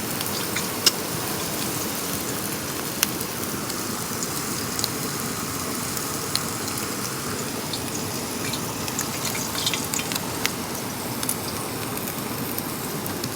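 Steady rush of waterfall water and rain, with scattered small ticks and crackles over it.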